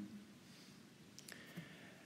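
Near silence: room tone, with two faint clicks a little past halfway.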